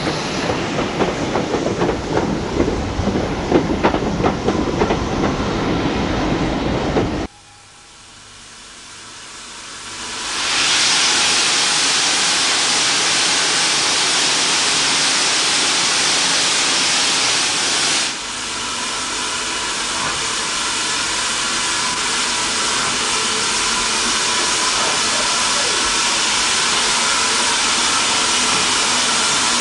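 Railway carriages of a steam-hauled train rolling past with a clickety-clack of wheels over rail joints, cutting off about seven seconds in. Then a steady, loud hiss of escaping steam from BR Standard Class 4 steam locomotive 75029 swells up over a few seconds and keeps going.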